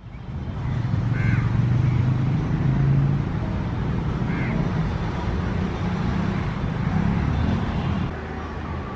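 Steady low rumble of a WAP 7 electric locomotive and its passenger train approaching along the track, with a few short bird calls: about a second in, at about four seconds, and near the end.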